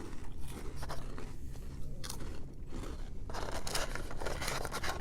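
Spicy snack chips being bitten and chewed, a run of crisp crunches that grows denser about three seconds in.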